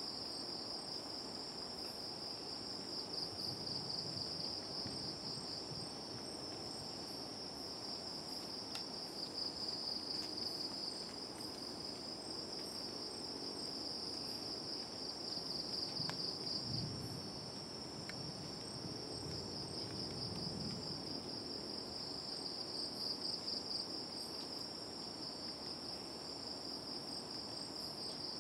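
Night insects, crickets or similar, keeping up a steady high pulsing trill, with a second insect adding short runs of faint high ticks now and then. A brief low rumble comes about halfway through.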